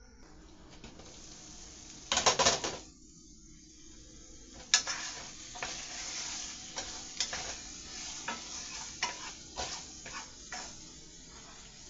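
Cookware handling on a stovetop over a faint sizzle of sauce cooking in a pot: a loud clatter about two seconds in, then a sharp click and a string of lighter clicks, knocks and scrapes.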